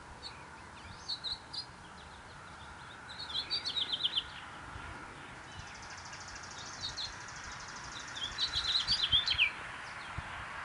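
Songbirds chirping: a few single high chirps, and two quick runs of chirps about a second long, one about three seconds in and one about eight seconds in.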